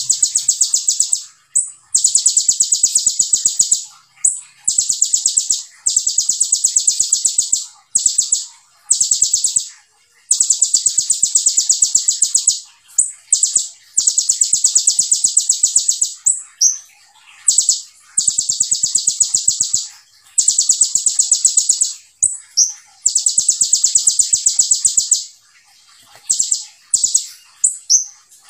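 Caged kolibri ninja sunbird singing: long runs of very rapid, high, evenly repeated notes, the fast-fire 'tembakan' song, each run a second or two long, following one another with short breaks.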